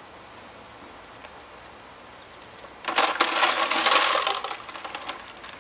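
Ice cubes clattering and rattling against plastic as they are handled at the cooler. A loud rush of many small clinks starts about three seconds in and dies away over about two seconds.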